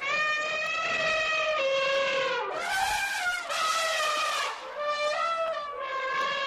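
Asian elephant trumpeting: long calls that slide slowly down in pitch, broken a little before halfway by two harsh, raspy blasts, with another call starting near the end.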